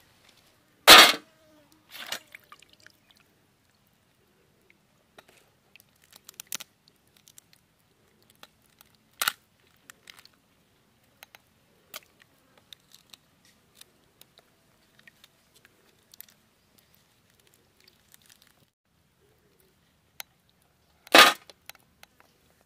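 Boiled crab shells being cracked and pulled apart by hand: two loud cracks, one about a second in and one near the end, with small snaps and crunches of shell between.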